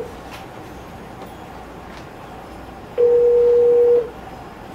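A video phone sounding a steady single-pitch ringing tone about a second long, about three seconds in; the tone repeats every four seconds.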